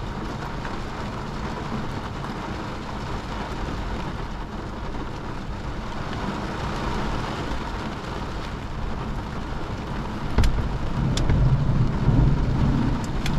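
Thunderstorm rain beating steadily on a car's windshield and roof, heard from inside the car. About ten seconds in, a louder low rumble builds, with a few sharp knocks.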